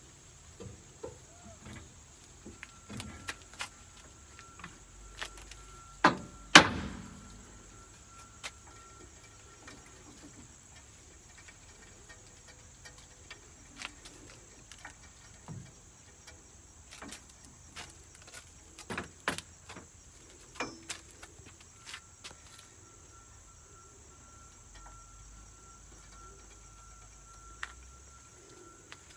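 Scattered metal clanks and knocks as the Detroit Diesel 6-71 engine, sitting on a jack, is raised and shifted into line in the bus's engine bay. Two sharp knocks about six seconds in are the loudest.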